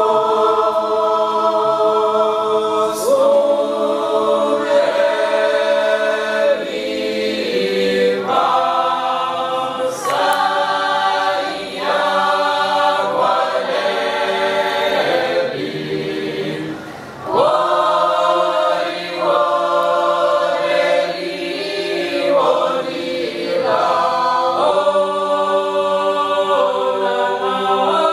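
Mixed men's and women's choir singing a Georgian polyphonic table song (supruli) a cappella, in phrases of held chords with a short breath pause about seventeen seconds in.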